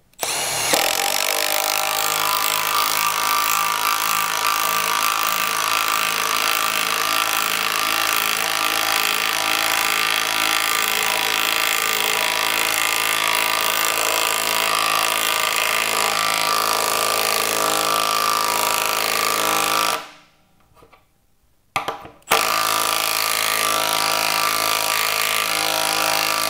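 A Milwaukee cordless impact tool hammers steadily for about twenty seconds as it drives a 1/2-inch lag screw into a wooden beam through an impact socket. It stops briefly, gives one short burst, then hammers on again.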